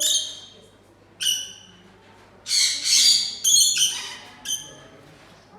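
A bird giving loud, harsh calls: one at the start, another just over a second later, then a longer run of calls around the middle, ending with a short one.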